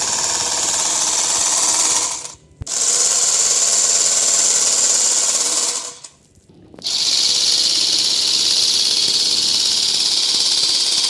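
Handheld portable bag-closing sewing machine running at speed, its motor and stitching mechanism buzzing steadily as it sews a woven polypropylene sack shut. It runs in three long bursts, stopping briefly about two seconds in and again about six seconds in, and the last burst is slightly lower in pitch.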